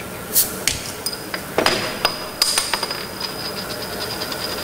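Glass bottle of Coca-Cola opened with an opener, several sharp clinks of metal on glass, then the cola poured into a glass with a rapid run of small ticks.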